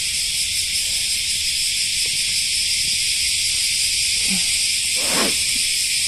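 Dense chorus of cicadas: a loud, steady, high-pitched hiss with no breaks, loud enough to drown out speech.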